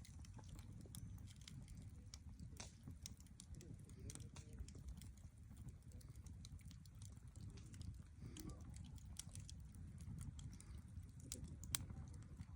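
Wood campfire crackling: irregular sharp snaps and pops over a low steady rumble.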